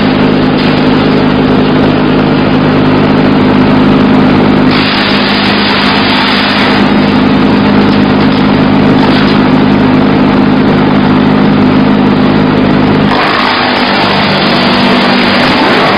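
Diesel-engine mobile wood chipper running loud and steady, a low engine hum under a dense rushing noise that shifts in strength a few times. About 13 seconds in, the engine's pitch drops.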